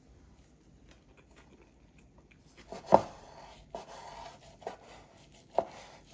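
Knife cutting a rolled kimbap on a cutting board: three sharp knocks of the blade on the board in the second half, with a rustle of the roll being sliced between them.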